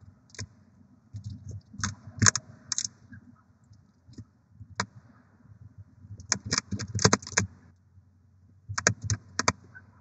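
Barn owl shifting about on its eggs in a wooden nest box: bursts of sharp clicks and scratches, a few about two seconds in, a longer run around six to seven seconds, and several more near the end, over a low steady hum.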